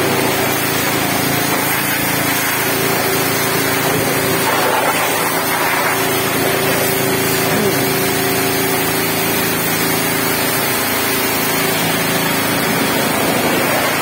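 High-pressure washer jet spraying steadily against the steel underside of a motor grader, over a steady motor hum.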